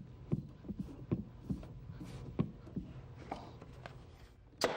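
Light, irregular taps and clicks of small wooden moldings being pressed by hand into the rabbets of a wooden door frame, over a steady low hum, with a brief louder hiss near the end.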